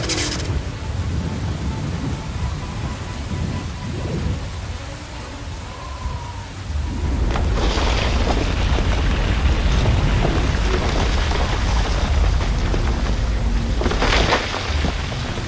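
Storm sound effects: steady rain with thunder, a heavy low rumble setting in about seven seconds in, and sharp cracks at the start and again near the end.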